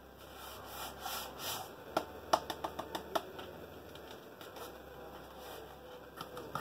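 Hands turning and gripping a foam RC plane fuselage: rubbing and scraping of the foam against the fingers, with a quick run of about six light clicks or taps around two to three seconds in.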